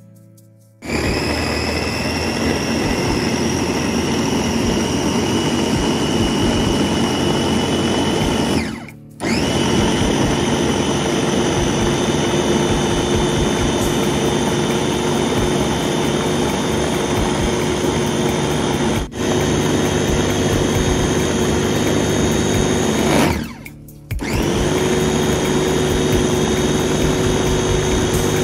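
Electric food chopper with a red motor head blending boiled curry-paste ingredients and fish into a paste in its plastic bowl: the motor runs with a steady high whine. It starts about a second in, stops for about half a second twice (about nine seconds in and near the end), cuts out for an instant in between, and starts again each time.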